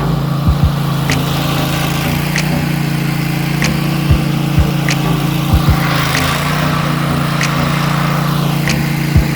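An engine running steadily at an even speed, with a light tick about once a second and a few low thumps.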